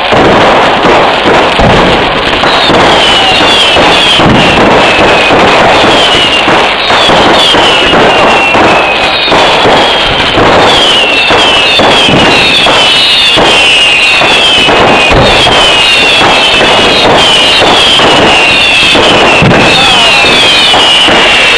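A fireworks display (vedikettu): a loud, unbroken barrage of bangs and crackling shells. From a few seconds in, many overlapping whistles fall in pitch, growing denser through the second half.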